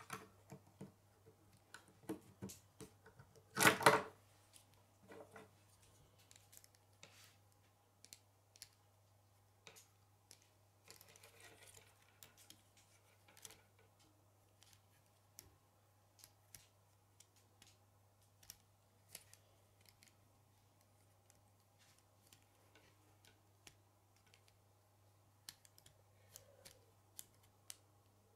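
K'nex plastic rods and connectors clicking and snapping together as they are handled and fitted by hand: scattered light clicks, with a louder cluster of snaps about four seconds in.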